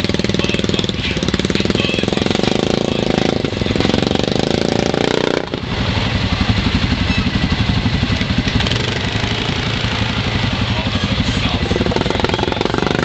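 ATV (quad bike) engine running close by, with a rapid, even firing beat. Its note shifts lower about five and a half seconds in.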